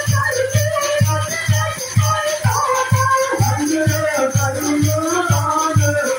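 Devotional bhajan played live: a melody over a steady hand-drum beat of about three strokes a second, with rattling hand percussion.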